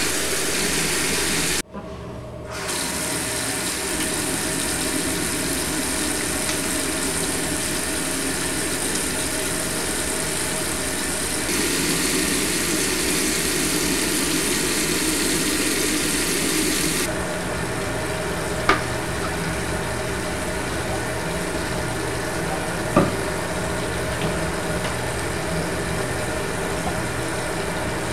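Steady rush of tap water running into a bathroom sink over a low hum, dropping out briefly about two seconds in, with two small clicks later on.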